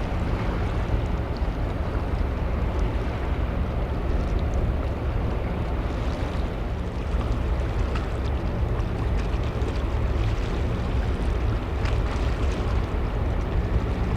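Ferry engines running with a steady low hum of several even tones, under a haze of wind noise on the microphone.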